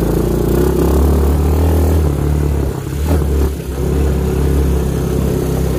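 ATV engine running under way, a steady mid-pitched engine note that dips briefly about halfway through and then picks up again.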